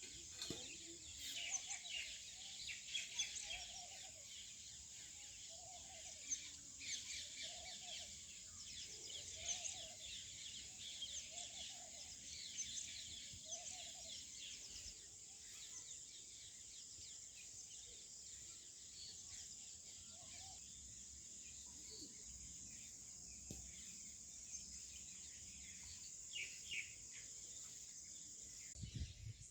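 A chorus of small birds chirping and tweeting, with many short overlapping calls, busiest in the first half and thinning later. Under it, a lower bird call repeats about once a second through the first half.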